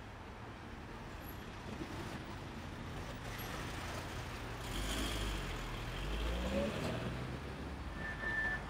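Car traffic passing close on a city street. About halfway through, a car engine rises in pitch as it accelerates past. A short high-pitched squeal comes near the end.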